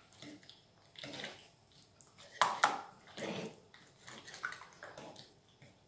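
Wire whisk mixing mascarpone into egg yolks and sugar in a ceramic bowl: irregular wet stirring strokes, a few of them sharper where the wires hit the bowl, the strongest about two and a half seconds in.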